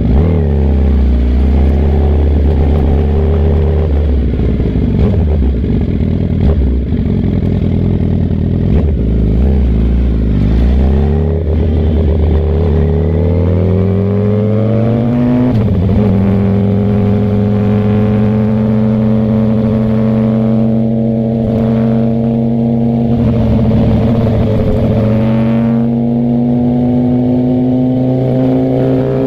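Suzuki GSX-R 1000 inline-four engine heard from the rider's helmet, running at low revs for about ten seconds. It then revs up over a few seconds and holds a steadier, higher note, climbing a little near the end.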